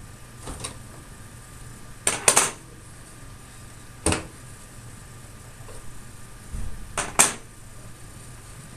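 Sharp plastic clicks of server memory-slot latches being snapped open and memory modules pulled out, about six clicks a second or more apart, some in quick pairs, over a low steady hum.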